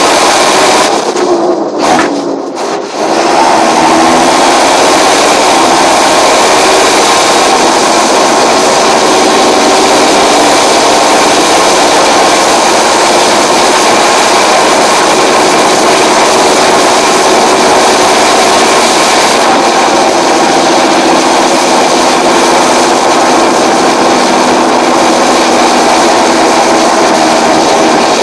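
John Deere 7530 tractor's six-cylinder turbocharged diesel running steadily under load, with the high whistle of its turbocharger over the engine note. The sound dips and thins briefly about two seconds in, then comes back steady.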